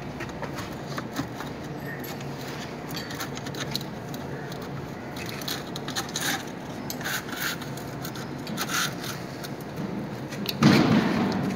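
Scattered light metal clinks and scrapes over a steady low machine hum, with a louder scraping burst near the end.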